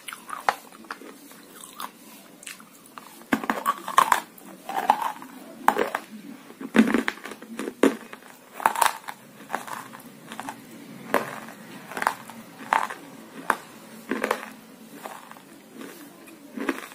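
Close-up crunching and chewing of hard, dry roasted nakumatt lumps: loud sharp crunches as pieces are bitten, then a steady run of chewing crunches about once every 0.7 seconds.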